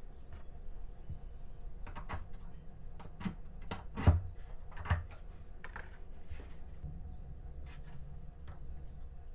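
Scattered light clicks and knocks of a thin metal hand tool and a small model glow engine being handled against a balsa wood fuselage during engine mounting. Two louder knocks come about four and five seconds in.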